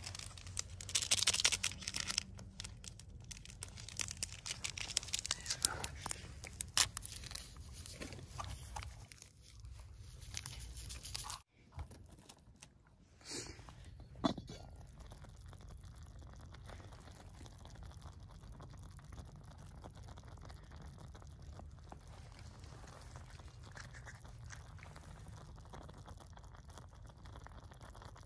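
Cooking fire crackling with sharp pops and crunches under a saucepan of noodles, then a glass pot lid set on the pan with a single clink about fourteen seconds in, followed by a steady low hiss of the fire under the covered pot.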